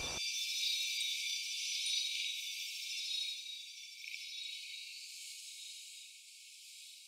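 High, shimmering TARDIS sound effect: a hiss threaded with several thin, steady ringing tones, slowly fading away toward the end.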